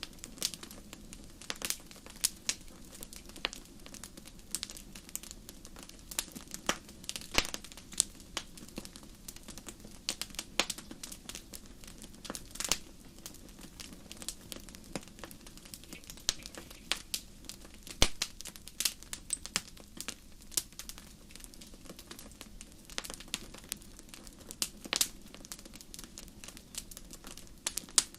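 Wood campfire crackling: irregular sharp pops and snaps, several a second with occasional louder ones, over a faint steady low background.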